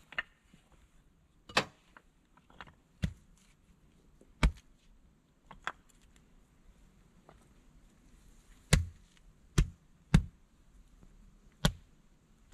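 Flat stones clacking and knocking against each other and the ground as they are lifted from a pile and set down, about ten sharp separate knocks at uneven intervals, with a cluster of the loudest in the second half.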